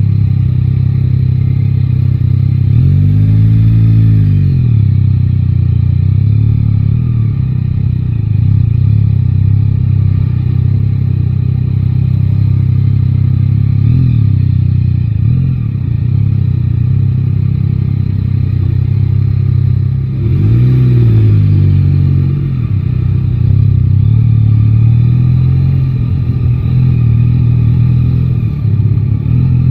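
Yamaha Tracer 9 GT's three-cylinder engine running in city traffic, its pitch rising and falling twice as the throttle is opened and closed, about three seconds in and about twenty seconds in, and climbing again near the end.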